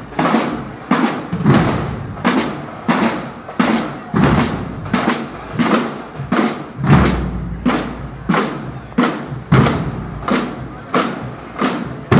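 Marching band drum line, bass drums and snare drums beaten with sticks, playing a steady marching cadence of about two strong beats a second.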